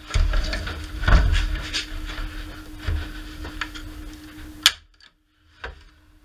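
Hand pop rivet gun being squeezed repeatedly on a pop rivet in aluminum, with clicking and handling knocks, ending in one sharp snap about four and a half seconds in as the mandrel breaks off and the rivet is set.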